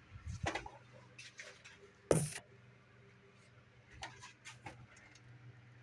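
Scattered light clicks and one sharp knock about two seconds in, over a faint steady hum.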